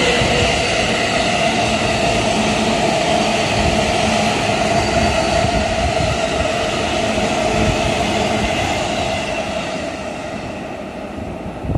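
Two electric commuter trains passing at once, a Sotetsu 20000 series running through the station and a JR East E233/E231 Tokaido Line train on the adjacent tracks. Their wheels and motors make a steady loud rumble with a few steady tones in it, fading over the last couple of seconds as the trains draw away.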